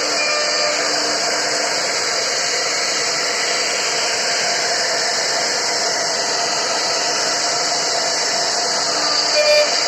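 CNC router spindle running while it cuts into a wooden board: a steady, even whirring hiss with a faint whine in it. A few short, louder tones come in near the end.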